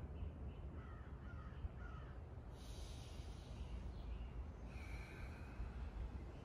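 Faint bird calls: three short calls in quick succession about a second in and another brief call near five seconds, over a low steady rumble.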